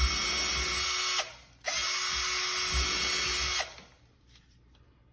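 Power drill with a 1/16 inch bit running in two steady bursts of about a second and two seconds, pre-drilling pilot holes for the screws of a hinge-boring jig.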